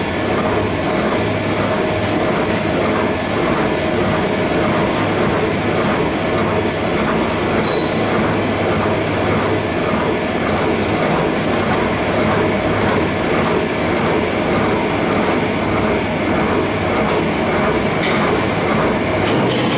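Mobile gold and diamond washing plant running, its trommel screen and duplex jig machinery making a loud, steady mechanical rattle over a low motor hum, with a regular beat about twice a second.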